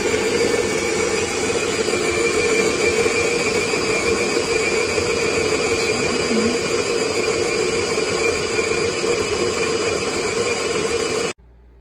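Electric coffee grinder running steadily as it grinds beans, a loud motor whir with a steady whine, cutting off suddenly near the end.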